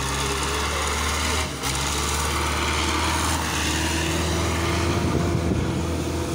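Belarus 510 tractor's four-cylinder diesel engine running steadily under heavy load as it hauls a fully loaded trolley. The sound dips briefly about one and a half seconds in, and the engine note wavers in pitch near the end.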